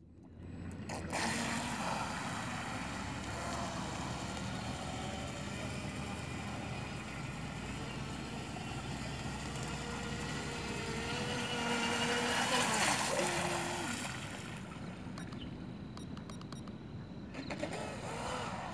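Radio-controlled model speedboat running across open water, its motor and hull spray making a steady rushing noise that swells loudest about twelve seconds in.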